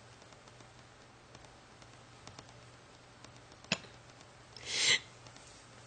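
Quiet pause with a faint steady hum in a small room; a single sharp click about three and a half seconds in, then a short breath about a second later.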